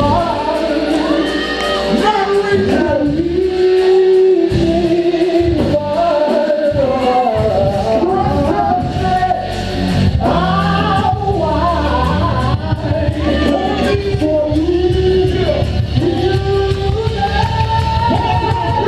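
Music with singing over a steady beat that comes in after about two seconds, echoing as in a large hall.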